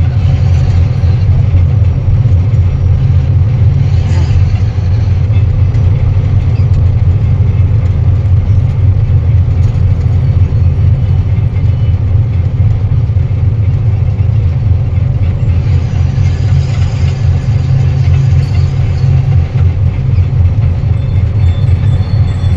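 Truck engine running with a loud, steady low drone, the sound of the truck under way.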